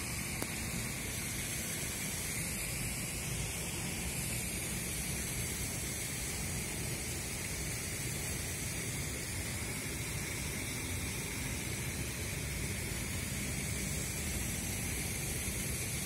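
Steady, even rushing noise with a low rumble underneath and no distinct events.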